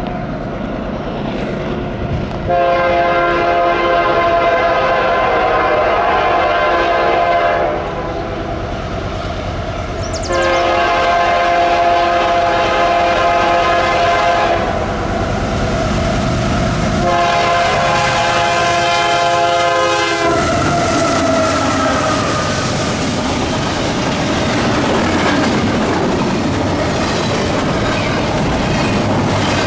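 Diesel locomotive horn sounding three long blasts, the third somewhat shorter, as a train comes by. The horn then fades with a falling pitch while the cars roll past, their wheels clacking over the rail joints.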